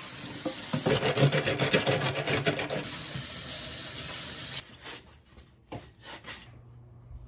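Kitchen tap running into a steel sink while plastic plant pots are scrubbed with a brush and rinsed, with quick rhythmic scrubbing strokes about a second in. The water cuts off a little past halfway, followed by a few brief rubs of a cloth towel drying a pot.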